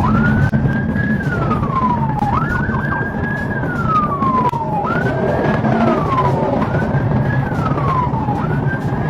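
Police car siren on its wail setting: each cycle a quick rise in pitch followed by a slow fall, repeating about every two seconds, over a steady low rumble.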